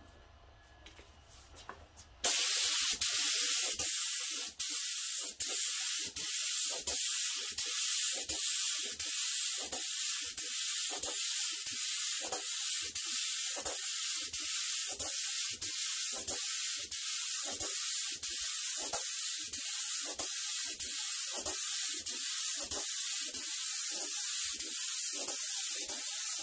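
HVLP gravity-feed spray gun spraying a sanding coat of lacquer: a loud, steady air hiss that starts abruptly about two seconds in, with a faint regular pulsing about twice a second.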